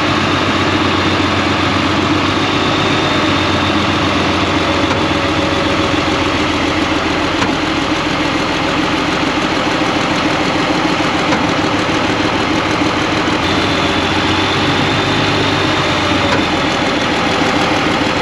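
Alvis Stalwart Mk2's turbo diesel engine running steadily close to the microphone while its Hiab hydraulic crane lifts a load. A faint whine rides over the engine and grows a little stronger about two-thirds of the way in.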